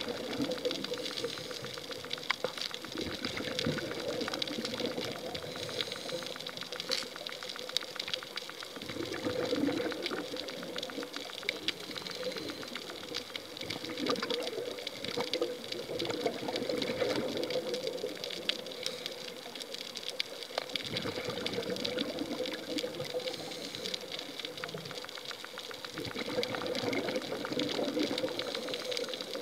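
Scuba diver's underwater soundscape: the regulator's breathing and exhaled bubbles swell about every five seconds over a steady crackle of fine clicks, typical of snapping shrimp on a coral reef.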